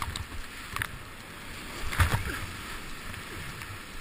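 Whitewater rapid at high flow rushing around a kayak, with splashes as big waves break over the boat and spray hits the helmet camera. The loudest splash comes about two seconds in.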